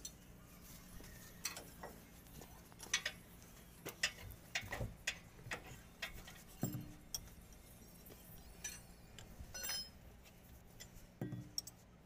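Irregular metallic clicks, knocks and clinks of a wrench and steel bar working on the bolts of a truck's power steering box, a few ringing briefly. A faint steady hum runs underneath.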